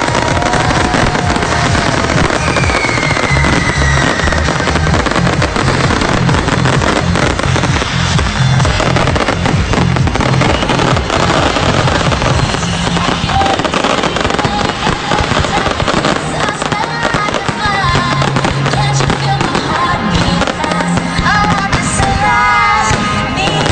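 Fireworks display: continuous crackling and bursting of shells, with a whistle gliding down in pitch a few seconds in. Music with a heavy bass line plays loudly over it.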